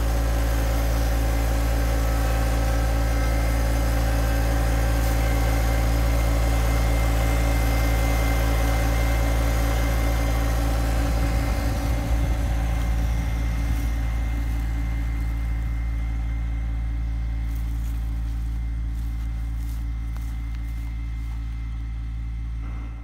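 John Deere 2025R compact tractor's three-cylinder diesel engine running at a steady speed, with a brief uneven rumble about halfway through.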